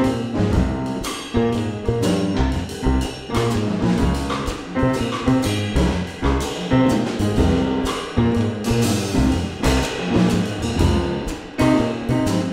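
Jazz piano trio playing an instrumental passage: acoustic piano over plucked upright double bass and drum kit with cymbals.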